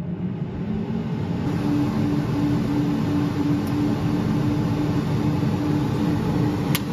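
Ninja Foodi XL dual-zone air fryer's convection fan running: a steady whir that builds over the first second or so, joined by a steady low hum about a second and a half in. A sharp click near the end.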